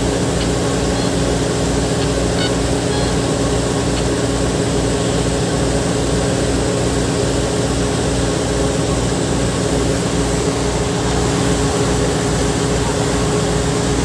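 Fire truck engine running steadily close by, with a low, even throb and a constant hum.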